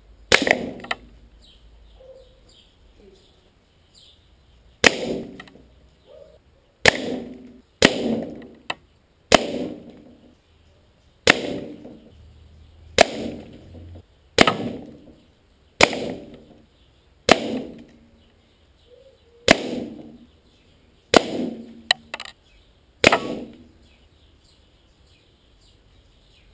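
Gamo Shadow DX .25 calibre air rifle shot again and again at a tin can, about thirteen times, every one to two seconds. Each shot is a sharp crack merged with the pellet's strike on the can and the rusty steel plate behind it, ringing briefly as a clang.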